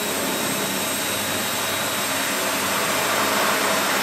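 Power drill running steadily, driving a screw into the joint of steel stove-pipe sections, growing a little louder near the end.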